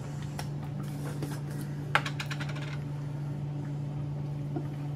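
Light clicks and taps of kitchen utensils and containers, with a quick run of them about two seconds in, over a steady low hum.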